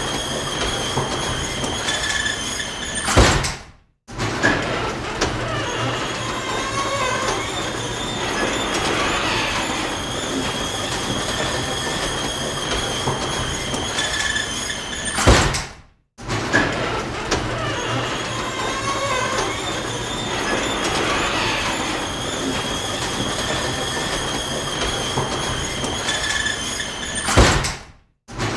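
Garage door closing: a steady rolling rumble with a faint high whine, ending in a loud bang as the door meets the floor. The cycle repeats about every twelve seconds, with three bangs in all.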